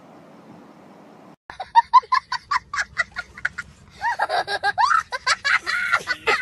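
Faint steady room hiss, then after about a second and a half a sudden cut to a young child laughing hard: a quick run of high-pitched cackles, about six a second, that turns into longer, wavering peals of laughter.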